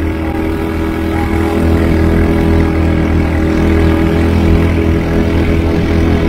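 ATV engine running at a steady pitch as it is ridden.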